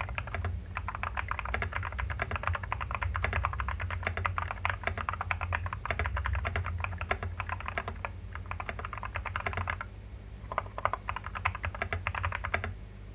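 Vortex VX5 Pro mechanical keyboard with stock JWICK Red linear switches, tape-modded, foam- and PE-foam-modded, with PBT keycaps, being typed on fast and continuously. There is a short pause just under ten seconds in, then the typing resumes.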